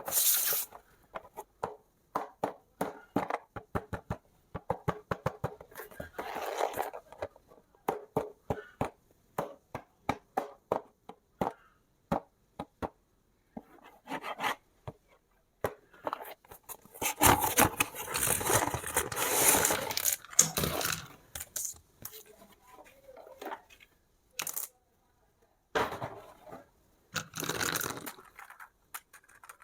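Toy packaging being handled and torn open: many sharp clicks and taps of plastic and cardboard, broken by stretches of tearing and crinkling, the longest and loudest a little past the middle.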